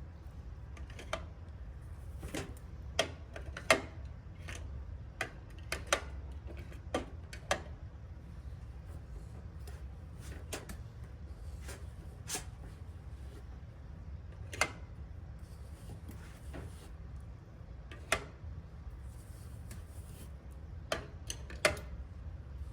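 Irregular light clicks and taps of small objects being handled and set down, over a steady low hum.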